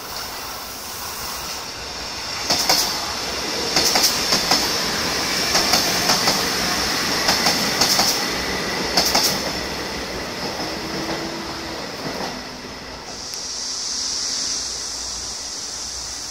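A train running over a level crossing, its wheels clicking over the rail joints in quick groups every second or so, with a steady high-pitched wheel squeal. The clicking dies away after about ten seconds while the squeal carries on.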